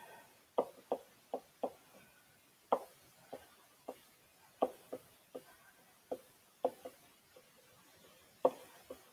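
A stylus clicking and tapping on a tablet screen while words are handwritten: light, irregular clicks, about two a second.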